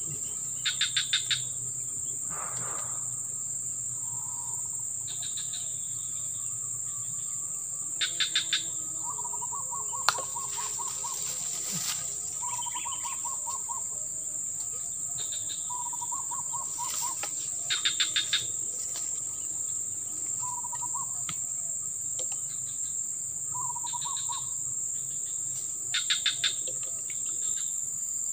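Steady high-pitched insect drone with a bird calling over it: a quick burst of four or five sharp notes about every eight seconds, and shorter, lower trills in between. A single sharp tick about ten seconds in.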